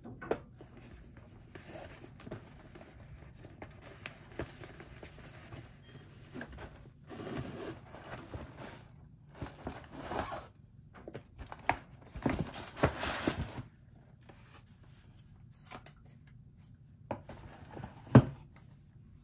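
Stiff paper gift bag rustling and crinkling in irregular bursts as hands open it and lift a box out, with scattered small clicks of handling. About 18 seconds in, one sharp knock, the loudest sound, as the box is set down on the table.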